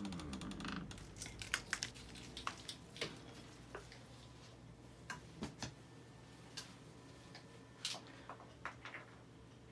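Scattered light clicks and taps at irregular intervals, most of them in the first three seconds and sparser after.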